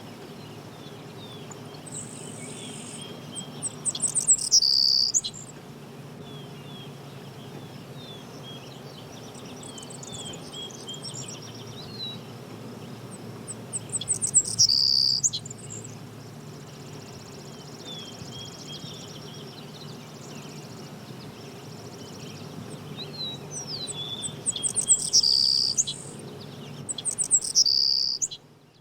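Several songbirds chirping and calling, with many short high chirps and quick whistled glides. Three times, a close bird gives a loud flurry of rapid chirps, over a steady low background hum.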